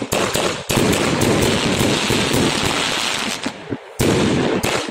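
Fireworks going off: a quick run of sharp bangs as shells burst, then a dense crackling for about three seconds, and another loud burst about four seconds in.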